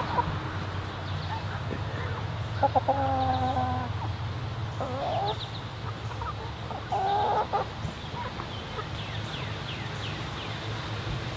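Backyard chickens calling: three pitched calls, the first drawn out for about a second around three seconds in, a short one near five seconds and another near seven seconds, over a steady low hum.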